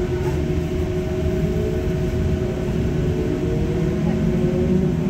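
Cabin of a Mercedes-Benz O405N2 city bus under way: steady low rumble of the engine and driveline with a constant hum, and a whine that slowly rises in pitch from about two seconds in.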